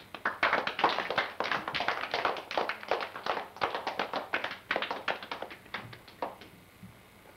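A few people clapping: applause that starts right away and thins out, stopping about six and a half seconds in.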